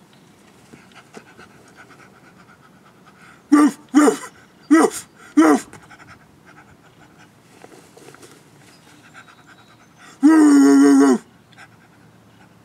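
A man imitating a dog with his voice: faint panting, then four short barks in quick succession, and near the end one long held bark-like call about a second long.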